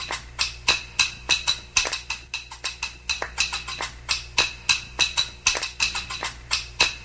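A wooden spoon and a pen used as drumsticks, tapping out a quick, uneven rhythm of sharp clicky strikes, about four to five a second.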